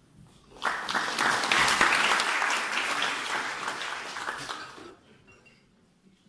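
Audience applauding, starting just under a second in and dying away about five seconds in.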